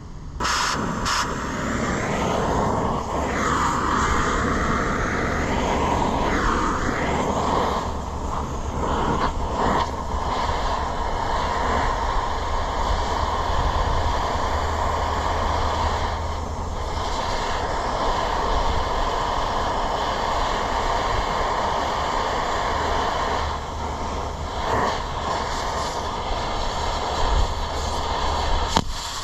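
Cutting torch running with a loud, steady rushing hiss as it cuts through a steel mounting plate, starting just after the beginning.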